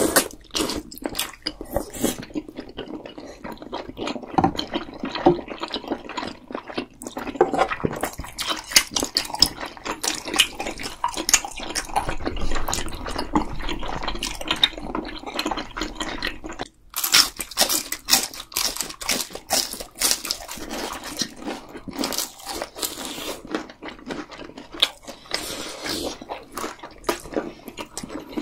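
Close-miked eating sounds from two people eating spicy rice cakes and ramen noodles in sauce: wet chewing, slurping and smacking, with many short sharp clicks and occasional crunches. A brief break comes about two-thirds of the way through.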